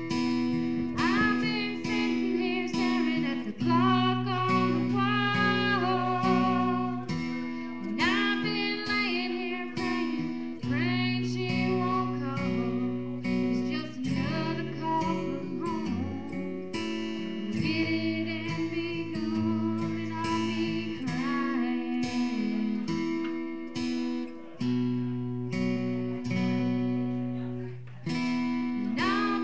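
A song sung over acoustic guitar, the voice coming in about a second in and carrying long held lines over the guitar.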